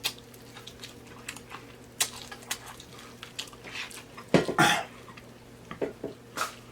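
Scattered clicks and taps of dishes and cutlery during a seafood boil meal, with a louder burst of noise about four and a half seconds in, over a faint steady hum.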